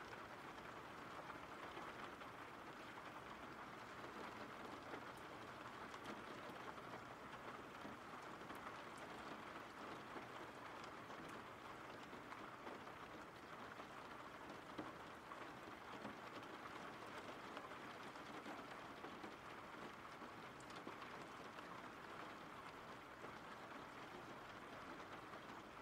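Faint, steady rain falling: an even hiss of rainfall from a background rain-sounds track.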